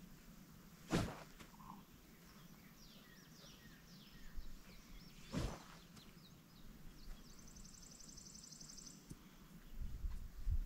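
Two quick swishes of a golf driver taken as practice swings, about a second in and again about five seconds in. Birds chirp faintly in the background, with a short high pulsed buzz around the middle.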